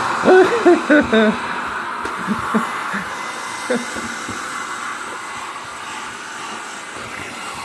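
A 1500-watt handheld blow dryer blowing steadily on a wet dog. A few short, voice-like pitched sounds come through it in the first second or so.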